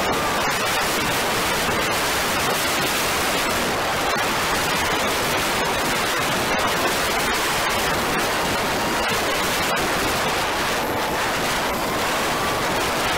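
Steady rushing wind noise buffeting the microphone of a camera on a vehicle moving at road speed, covering almost everything else. Near the end a faint tone rises and falls.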